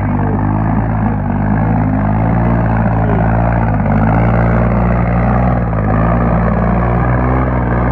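Tractor diesel engine running steadily, a loud, even drone with no change in speed.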